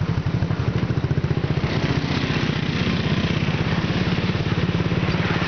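ATV engine running under way, a steady even pulse of firing strokes, with more rushing noise joining from about two seconds in.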